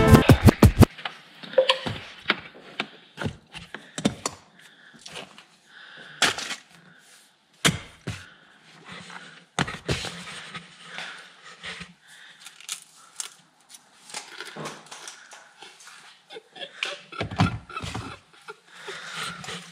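Music cuts off about a second in, followed by irregular knocks and clicks of things being handled, with soft rustling between them.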